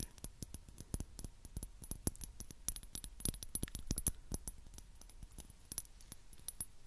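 Fingernails tapping and clicking on a small metal-and-glass mini perfume bottle: a quick, irregular run of sharp clicks with a bright, tinny ring, growing softer in the second half.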